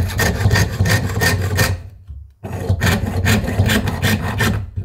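Jeweller's piercing saw cutting through silver sheet held on a wooden bench pin: quick, even rasping strokes at about five a second, stopping briefly about two seconds in and then carrying on.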